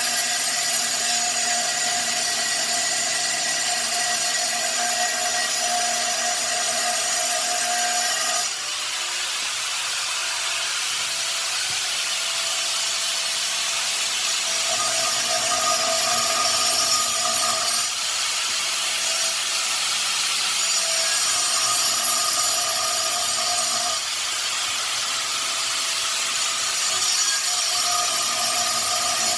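A power tool running steadily and cutting. Its whine and hiss change several times as the load comes and goes.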